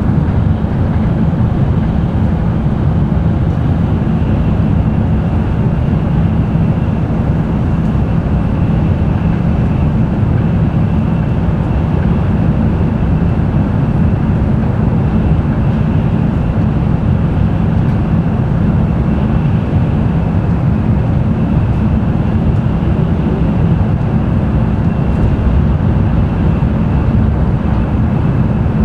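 Cabin running noise of an N700-series Tokaido Shinkansen at speed: a loud, steady low rumble of wheels, track and air, with a faint steady high tone above it.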